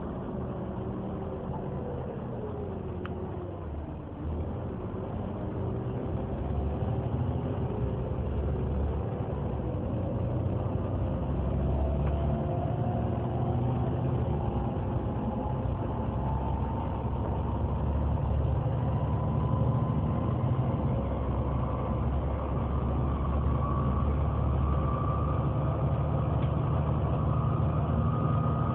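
Volvo B7TL double-decker bus idling, its cooling fan whining like a vacuum cleaner over the low engine hum. The whine rises slowly and steadily in pitch and grows louder as the fan speeds up.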